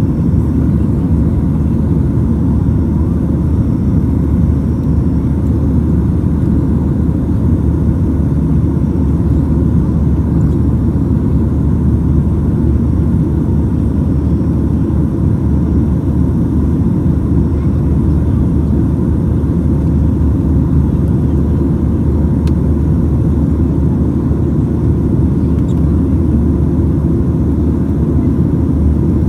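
Steady low roar inside the cabin of a Boeing 737-900ER climbing out after takeoff, from its two CFM56-7B27E turbofan engines and the air rushing past the fuselage, heard from a window seat over the wing.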